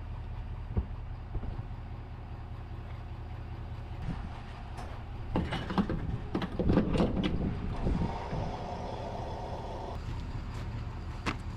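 Vehicle refuelling at a cardlock diesel pump: a steady low hum, with a run of clunks and rattles from handling the pump gear about five to eight seconds in. A steady whine follows for about two seconds, and a couple of sharp clicks come near the end.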